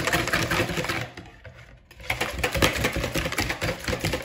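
Wire whisk beating raw eggs in a plastic mixing bowl: a fast rattling clatter of the wires against the bowl, breaking off for about a second and then starting again.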